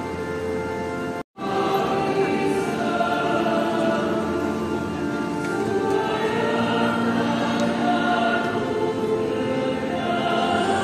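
A choir singing a church hymn, many voices holding long notes together, with a momentary break in the sound about a second in.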